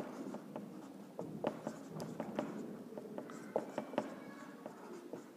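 Marker writing on a whiteboard: faint, irregular scratches and taps of the pen strokes.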